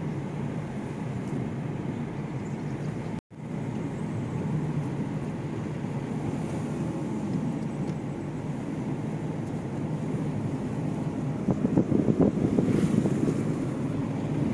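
Vehicle driving along a road, with wind rumbling on the microphone. The sound cuts out for an instant about three seconds in, and it grows louder and gustier near the end.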